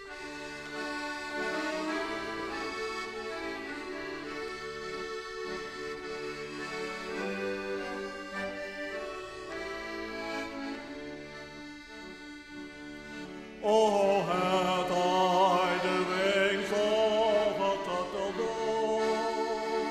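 Accordion playing the introduction of a sea shanty with held chords. About fourteen seconds in, the music jumps suddenly louder with wavering vibrato lines as a voice joins the accordion.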